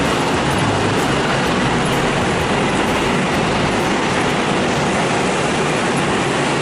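A passenger train on the move, a steady loud rush of running noise with no distinct beat from the wheels.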